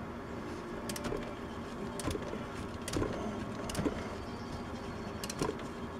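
Socket wrench ratcheting on valve cover bolts, in short runs of clicks a second or so apart, as the bolts are turned down snug.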